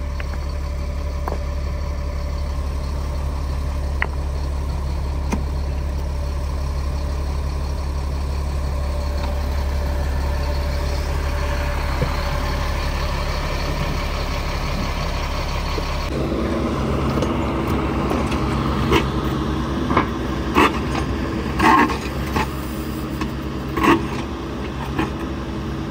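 Excavator diesel engine running steadily with its auger attachment working in rocky ground. About two-thirds of the way through the engine note changes, and a series of sharp knocks follows.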